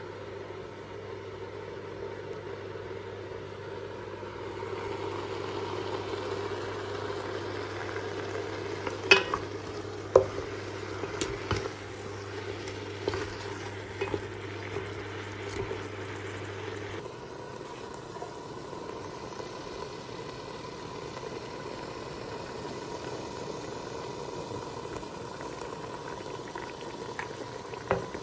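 Frozen spinach frying in a stainless steel pot, stirred with a wooden spoon, with several sharp knocks of the spoon against the pot in the middle.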